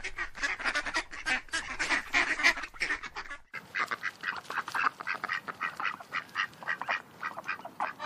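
A large flock of geese calling: a dense chorus of short, overlapping honks. It breaks off abruptly about three and a half seconds in and picks up again.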